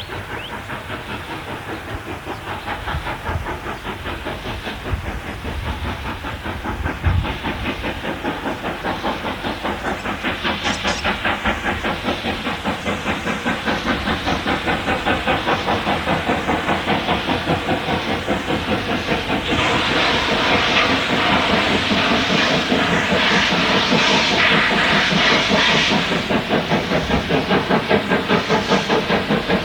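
Steam locomotive 520, a streamlined 4-8-4, working hard with its exhaust beating in a steady rhythm of about three beats a second that grows gradually louder. About two-thirds of the way through, a louder burst of hissing steam runs for several seconds over the beats.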